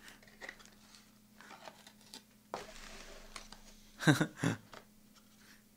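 Faint handling of a cardboard takeout chicken box: soft clicks and a stretch of rustling about two and a half seconds in, then two brief vocal sounds from the man about four seconds in.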